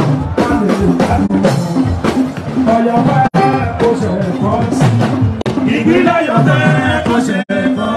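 Fuji music performed live: a man sings into a microphone over drums and percussion. The sound drops out for an instant twice.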